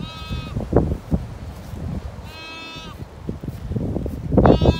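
Zwartbles lamb bleating: three high calls about two seconds apart. Under them runs a low rumble of wind and footsteps in the grass, loudest near the end.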